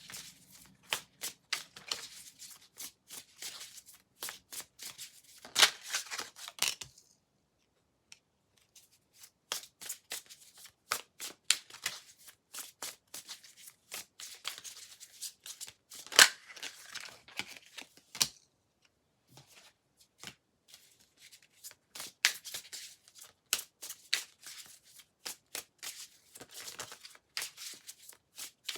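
Tarot cards being shuffled by hand, a rapid run of riffling and snapping card sounds that pauses twice, briefly, partway through.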